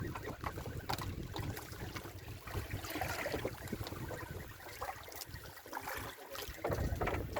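Wind buffeting the microphone over the wash of water around a small boat at sea, with scattered knocks and clicks; the wind rumble drops away briefly near the end.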